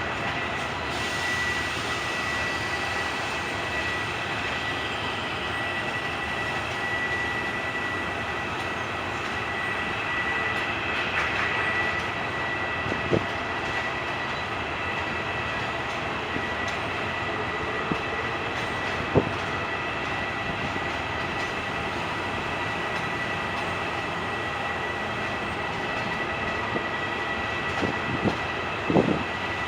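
Diesel train at a station platform: steady running noise with a constant high whine, broken by a few sharp knocks.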